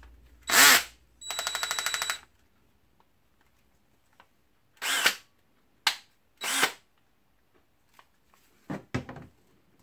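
DeWALT DCD731C2 14.4 V cordless drill driver run briefly: a loud burst about half a second in, then about a second of the motor running with a steady high whine and rapid even pulsing. Later come several short knocks and clicks from handling the drill and its battery pack.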